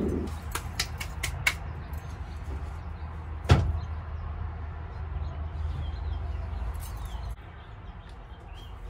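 Plywood bed-platform boards being handled in a pickup bed: a few light knocks near the start, then one loud knock about three and a half seconds in. A low steady rumble runs underneath and drops away near the end.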